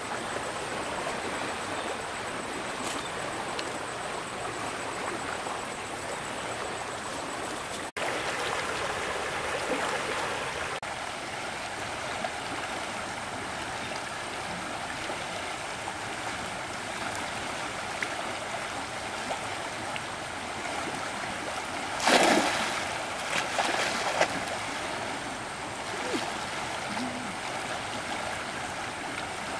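Flowing stream water, a steady rushing. A sudden louder sound cuts through about three-quarters of the way in, followed by a few smaller ones.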